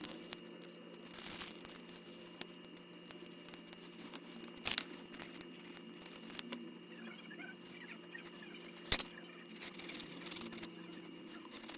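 Faint scraping and peeling of old adhesive being removed from the edges of an iPad frame, with a few sharp clicks of the tool, over a steady low hum.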